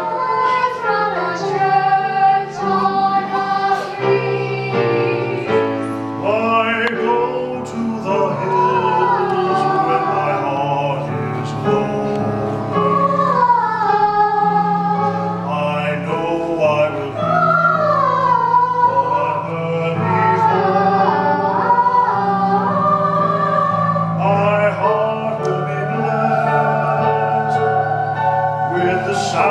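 A man singing a musical-theatre song live on stage over instrumental accompaniment, his voice holding long notes and gliding between them.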